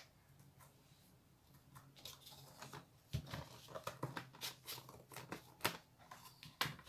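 Stiff cardboard and a board frame being handled on a tabletop: an irregular run of light taps, knocks and rustles that starts about two seconds in.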